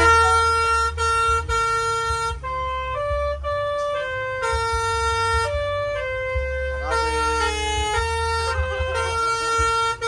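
Bus 'Basuri' telolet horn playing a tune, a run of held notes of about half a second each stepping up and down in pitch, over a low engine rumble.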